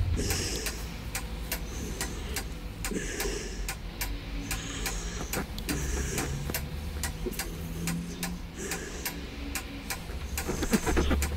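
Steady, even ticking, about three ticks a second, over a low hum.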